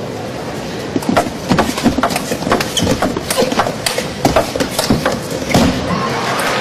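Table tennis rally: the celluloid ball clicking sharply off rackets and table several times a second from about a second in, over a steady crowd hum that swells near the end as the point finishes.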